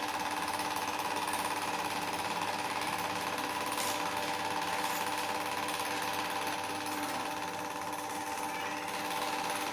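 An electric woodworking power tool running steadily: a constant whine over a fast, even rattle.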